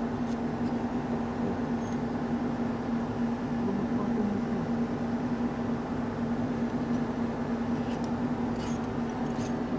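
Steady mechanical hum, a constant low tone that holds an even level, with a few faint light clicks near the end.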